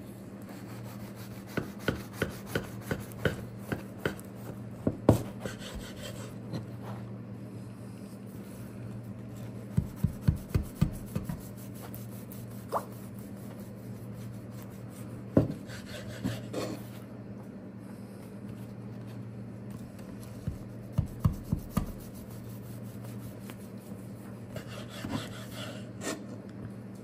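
Long kitchen knife sawing through the crust of a baked sweet bread loaf on a wooden cutting board, in several runs of quick crunchy strokes with pauses between, and a sharp knock of the blade on the board around the middle. A steady low hum runs underneath.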